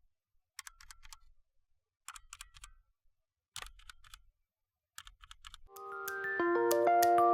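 Keystrokes on a mechanical keyboard with Bloody BLMS Red switches, typed in four short runs of clicks with silent gaps between them. Near the end, music with chiming, mallet-like notes begins and drowns out the typing.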